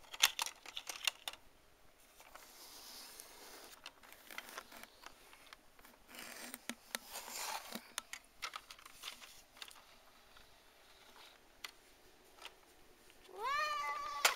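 Hands handling plastic toys and a plastic toy car: scattered clicks, taps and knocks with some rustling. Near the end a high-pitched squealing tone rises in and holds.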